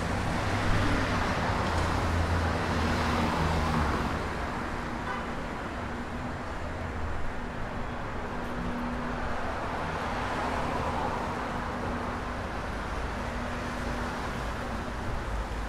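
Road traffic: motor vehicles passing, with one vehicle's engine loudest over the first few seconds, then a steady traffic hum.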